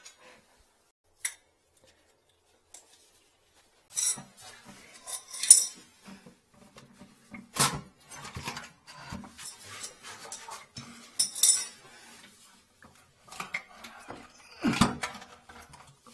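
Clatter and clinks of a porcelain one-piece toilet and hand tools being handled on a tiled floor. It is nearly quiet for the first few seconds, then comes a series of sharp knocks and ringing clinks, the loudest about five and a half seconds in.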